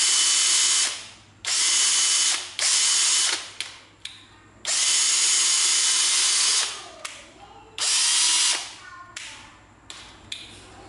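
National EZT105 cordless drill running free in five trigger bursts. Each starts at full speed and spins down as the trigger is let go; one burst in the middle runs about two seconds. The drill has no speed control, so each burst is a full-speed on-off pull.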